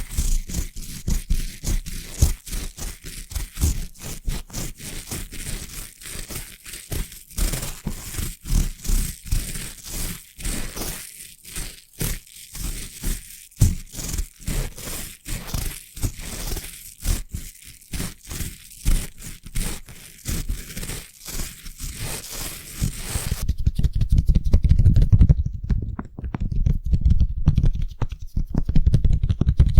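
Brush bristles stroked quickly and repeatedly, a run of short scratchy strokes. About 23 seconds in it changes to a denser, deeper rubbing without the crisp top.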